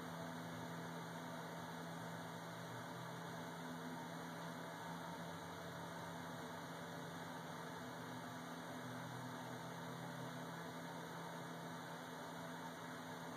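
Steady faint hum with an even hiss, with no distinct events.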